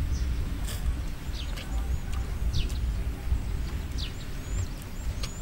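Birds calling outdoors: a short falling chirp repeated every second or so, with a few higher, hooked chirps among them, over a steady low rumble.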